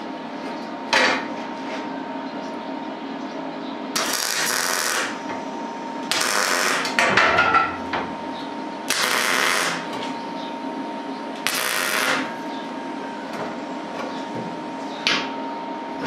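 MIG (wire-feed) welder arc crackling in four short bursts as steel washers are tack-welded onto a steel rod, with a steady hum underneath.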